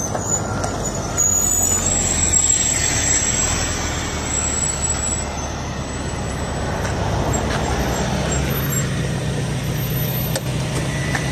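A large city bus drives past close by, its engine rumbling with road noise, then a GAZelle minibus with a UMZ-4216 engine pulls up and runs at a steady idle alongside.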